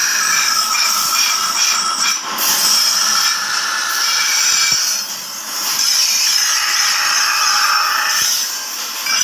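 Steel trowel blade being ground against a spinning shaft-driven grinding wheel: a steady, harsh, high grinding noise that eases off briefly a few times.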